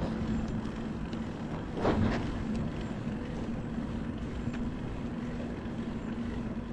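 Bicycle towing a caravan trailer, heard while riding: a steady rush of wind and rolling noise with a steady low hum, and a brief louder whoosh about two seconds in.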